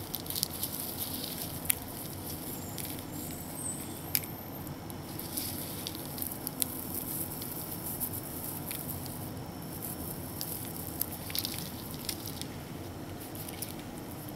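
Dried Hedyotis diffusa stems crackling and rustling as they are handled in the fingers: scattered small clicks and crackles in bunches over a steady background hiss.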